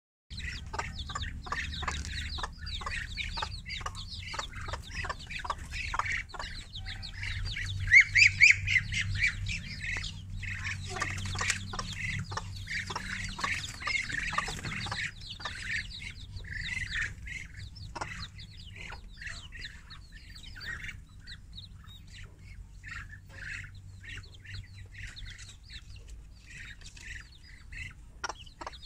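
A mother hen and her ten-day-old chicks: many short, high peeps and clucks, busiest in the first half, with a louder cluster of calls about eight seconds in.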